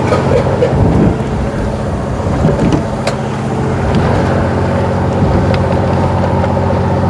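Fishing boat's engine running steadily, a low even hum with a few faint knocks.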